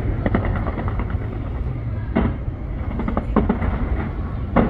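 Fireworks display going off: an irregular series of sharp bangs and crackles over a continuous low rumble, with a cluster of quick bangs about three seconds in and the loudest bang near the end.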